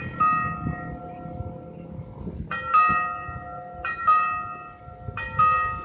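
A bell chiming in repeated two-note ding-dong pairs, one pair about every 1.3 seconds, each strike ringing on and fading.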